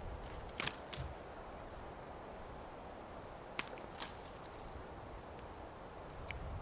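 A knife cutting leaves and twigs off a green branch: a few sharp snicks, the loudest about three and a half seconds in, over faint steady wind.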